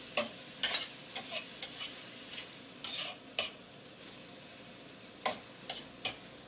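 A metal utensil scrapes and clicks against a stainless steel skillet in irregular strokes as chicken and vegetables are stirred, over a steady sizzle of the food frying.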